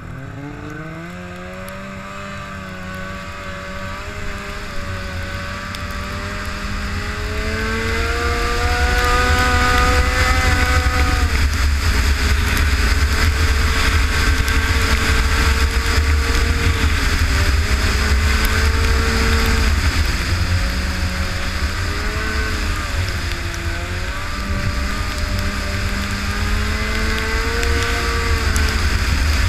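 Arctic Cat Firecat F6 snowmobile's 600 cc two-stroke twin pulling away and building speed over the first several seconds, then running hard with its pitch rising and falling as the throttle is worked. A low rushing noise grows with speed beneath the engine.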